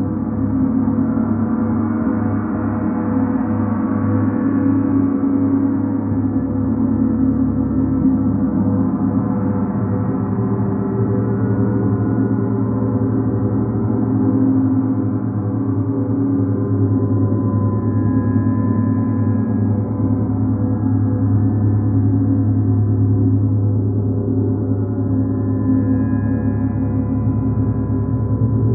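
Large planetary gongs played continuously with a soft felt mallet, building a sustained wash of many overlapping ringing tones. It holds steady in loudness, with a strong low hum and no single sharp strike standing out.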